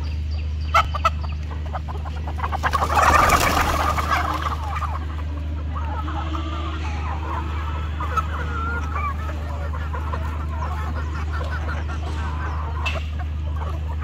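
A large flock of chickens clucking continuously as they crowd and peck at feed, with a loud scuffling rustle about three seconds in and a couple of sharp clicks just before it. A steady low hum runs underneath.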